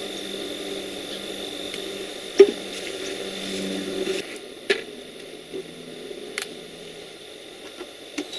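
Handling sounds at a raised strawberry bed as the hinged wooden lid covered in chicken wire is lowered: a sharp knock about two and a half seconds in and a few lighter clicks later. Under them runs a steady low machine hum that fades about four seconds in.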